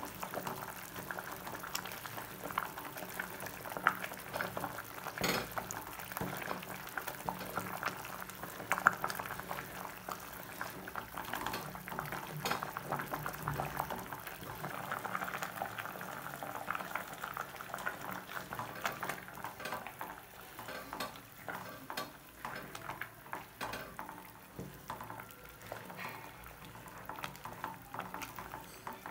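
Sisnu (stinging-nettle soup) bubbling at a boil in a metal pot, stirred with a wooden stick that knocks and scrapes against the pot's sides in frequent small clicks, a couple of them louder.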